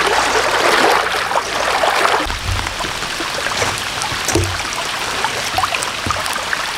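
Rain falling: a steady hiss of rain with scattered sharp ticks of drops hitting, heavier for the first couple of seconds. A few dull low thumps come in the second half.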